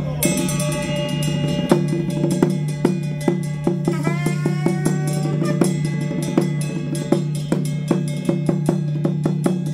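Percussion music led by drums: a steady run of drum strokes over a held low tone, with a pitched melodic line that bends about four seconds in.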